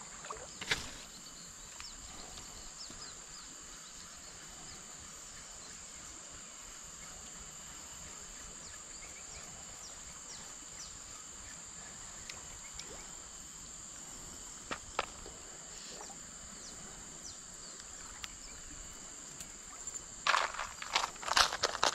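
Steady high-pitched insect drone over faint outdoor ambience, with a few scattered clicks and a cluster of louder knocks and rustles near the end.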